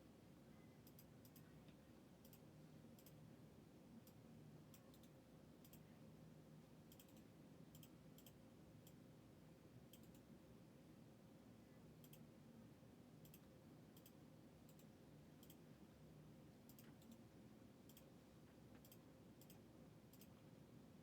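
Near silence: a faint steady room hum with small, irregular high-pitched clicks about once a second.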